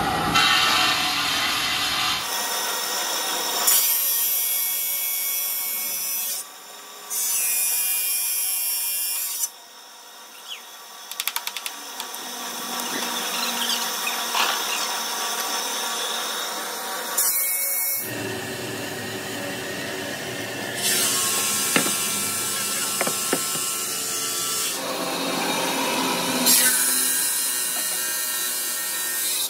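Large water-sprayed circular saw blade grinding through a granite block, a steady harsh rasping of blade on stone. Its tone and loudness change abruptly several times, with a quieter stretch near the middle that holds a few sharp clicks.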